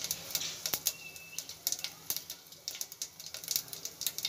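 Tempering spice seeds (phoran) crackling and popping in hot oil in a steel pot, with quick irregular pops throughout. A brief high whistle sounds about a second in.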